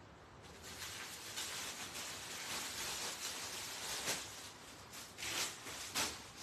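Cloth rustling and swishing as a long-sleeved blouse is pulled off and handled, with a few louder swishes in the second half.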